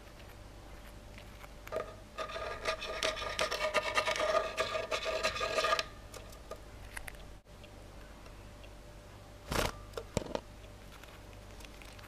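Masked lovebird at close range making a fast scratchy rasp that lasts about four seconds, with a steady pitch running through it. Two sharp taps follow a little less than a second apart.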